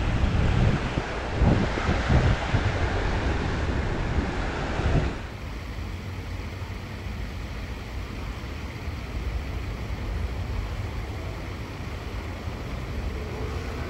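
Wind buffeting the microphone outdoors, gusty with low rumbles for about the first five seconds, then dropping suddenly to a steadier, quieter rush.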